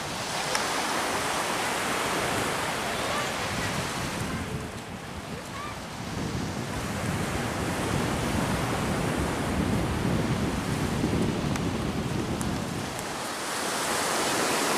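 Sea waves washing onto a beach, with wind blowing across the microphone; the rushing noise swells up through the middle and eases again.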